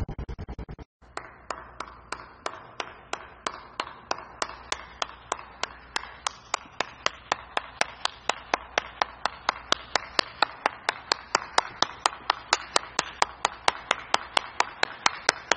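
A fast run of clicks lasting about a second, then a steady train of sharp ticks, about three a second.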